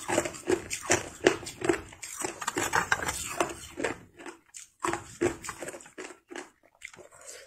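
Hard clear ice crunched between the teeth close to the microphone: a quick run of sharp crunches, about two or three a second, broken by short pauses about four and a half seconds in and again shortly before the end.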